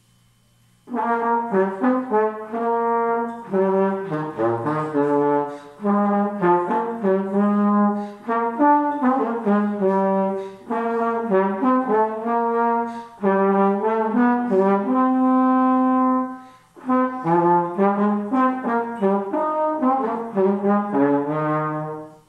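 Tenor slide trombone playing an unaccompanied melody, one note at a time, in short phrases with brief breathing gaps between them; it starts about a second in and stops just before the end.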